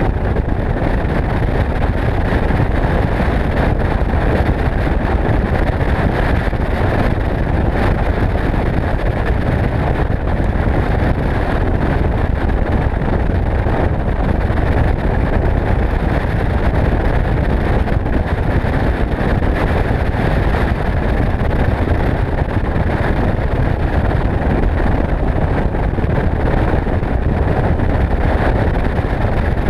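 Bass boat running at speed over choppy water: a steady rush of wind on the microphone over the drone of its outboard motor.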